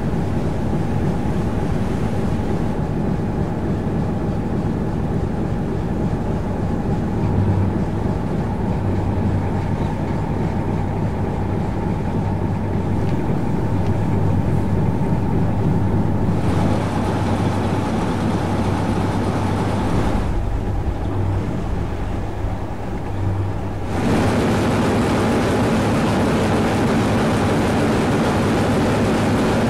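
The motor tug Kent's single-screw diesel engine running steadily under way, a low, even hum. Near the end it becomes louder and harsher, heard close in the engine room.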